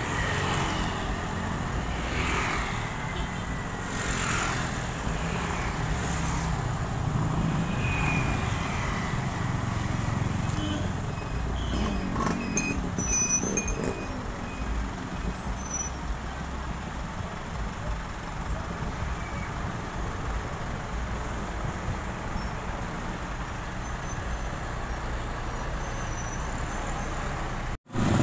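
Street traffic: trucks and buses running and creeping forward in a slow line, a steady engine noise throughout, with a brief dropout near the end.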